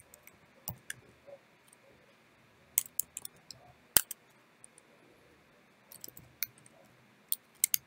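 Computer keyboard keystrokes while typing a command: scattered single key clicks and short quick runs with quiet gaps between, one sharper click about halfway through.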